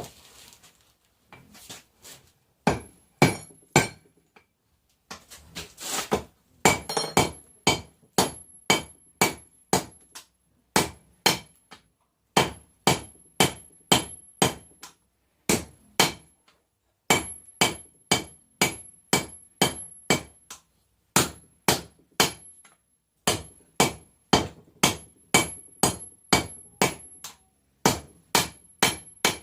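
Hammer blows on hot 1080 high-carbon steel over an anvil, about two strikes a second in runs with short pauses, each strike ringing high. The blows forge the steel bar into a knife blank.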